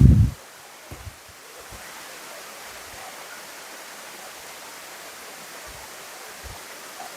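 Steady, even rush of a waterfall's falling water. A loud low thump comes right at the start, with a few soft low knocks after.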